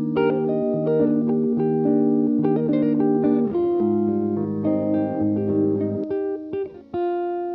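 Background music: a plucked guitar melody over a held bass line, ending on a sustained chord.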